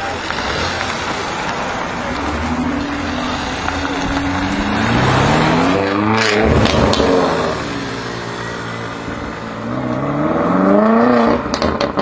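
BMW M5 F90's tuned twin-turbo V8 accelerating hard twice, its exhaust note climbing in pitch each time. There are a few sharp exhaust crackles at the top of the first pull and again near the end.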